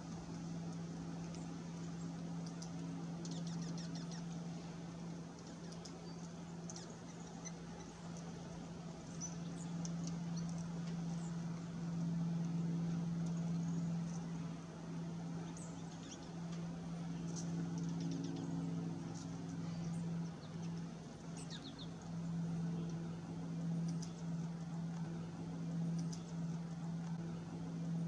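A steady low hum runs throughout, with many brief, faint high-pitched bird chirps and chips scattered over it, a few in quick little runs.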